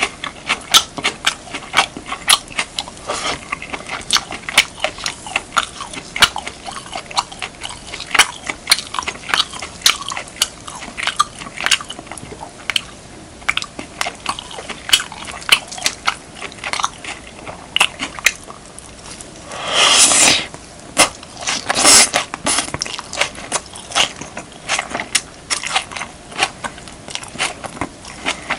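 Close-miked chewing of beef, kimchi and rice: irregular wet crunches, smacks and mouth clicks, several a second. Two longer, louder noisy sounds come about two-thirds of the way through.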